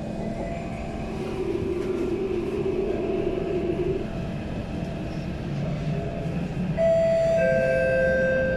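C151 metro train pulling away from the station, heard from inside the car: traction equipment hum as it gets moving, then loud steady whining tones from the motors and inverters from about seven seconds in as it gathers speed.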